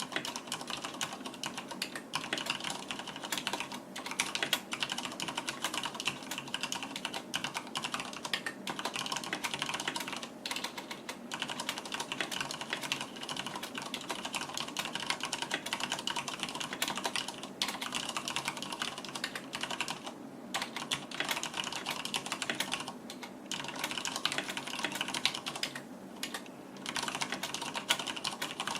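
Continuous fast typing on a mechanical keyboard with Cherry MX Red linear switches and PBT keycaps: a dense stream of key clacks, with a few brief pauses.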